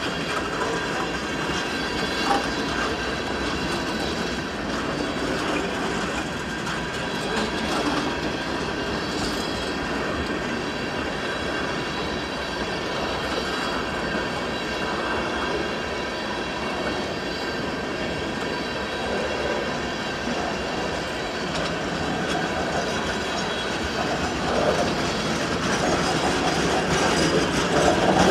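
Freight train cars rolling past on the rails, a steady wheel noise with a thin, steady high squeal from the wheels, growing a little louder near the end.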